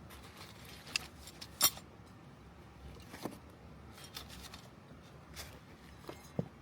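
Scattered light clicks and clinks of small objects being handled, about half a dozen in all, the loudest about a second and a half in.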